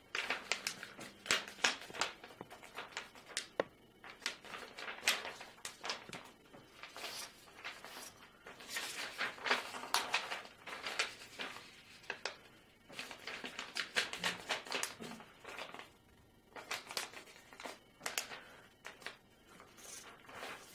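A sheet of origami paper being folded and creased by hand for a preliminary base: repeated short rustles and crinkles, with a few brief pauses between folds.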